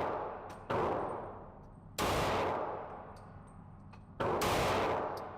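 Three gunshots about one to two seconds apart, each a sharp crack followed by a long echoing decay.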